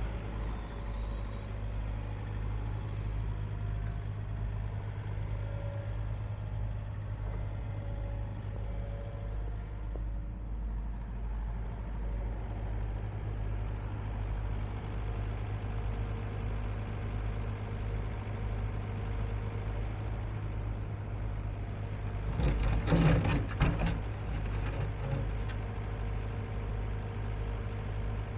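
Diesel engine of a John Deere 135D excavator running steadily at an even pitch. A short burst of clattering knocks stands out, louder than the engine, about three-quarters of the way through.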